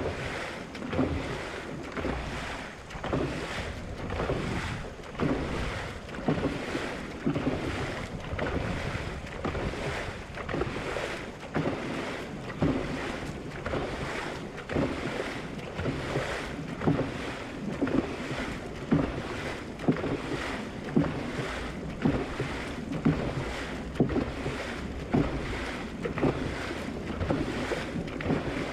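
Dragon boat paddles pulling through the water in a steady stroke of about one a second, each stroke a splash, over the constant rush of water along the hull and wind buffeting the microphone.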